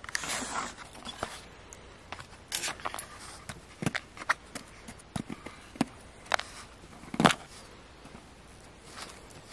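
A small blue digging tool scraping and chipping at a crumbly dig-kit block that has been soaked in water to soften it, with irregular scratches and clicks. The loudest scrape comes about seven seconds in.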